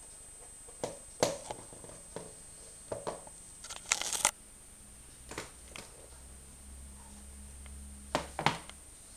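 Adidas F50 adizero football boots being handled, turned over and set down on a wooden floor: scattered clicks and knocks, with a short crinkling rustle about four seconds in.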